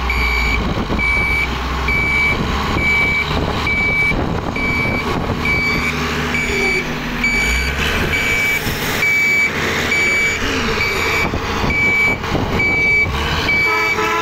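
Heavy machine's back-up alarm beeping steadily, about two short high beeps a second, over the running of diesel engines.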